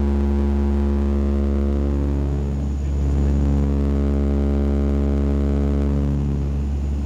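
Cabin drone of a de Havilland Canada Dash 8-100's twin turboprop engines and propellers in flight: a loud, steady low hum made of a stack of steady tones. It swells and wavers briefly about three seconds in and again near the end.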